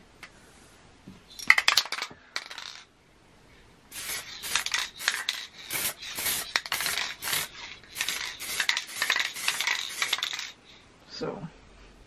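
Aerosol spray paint can being shaken, its metal mixing ball rattling: a couple of short bursts of rattling about a second in, then fast, continuous rattling from about four seconds in until just past ten seconds.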